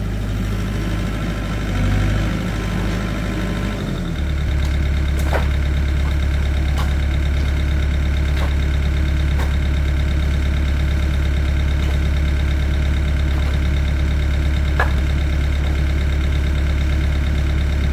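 An engine idling steadily with a low hum that shifts and settles about four seconds in, with a few short, sharp knocks scattered over it.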